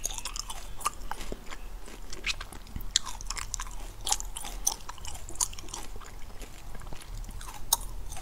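Close-miked ASMR mouth sounds of a person chewing food: a run of irregular short clicks and smacks from the lips, teeth and tongue.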